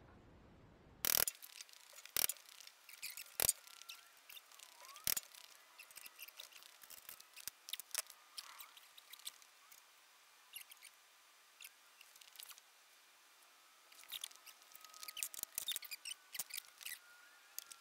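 Scattered sharp clicks and light taps from hand work in the shop. A few loud ones come in the first five seconds, then it goes quieter, and a busier run of clicks comes near the end.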